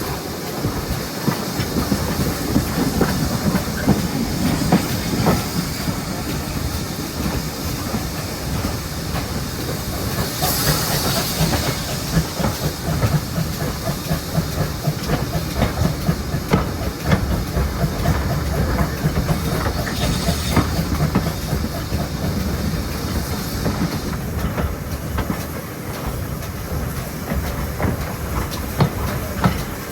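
GWR 0-6-0 pannier tank steam locomotive 7754 on the move, with steady running noise and rail clatter. Bursts of steam hiss come about ten seconds in and again about twenty seconds in.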